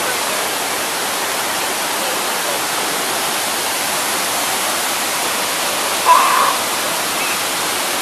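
Rushing whitewater of a rocky mountain stream cascading over boulders below a waterfall, a steady, even roar. A brief louder sound cuts in about six seconds in.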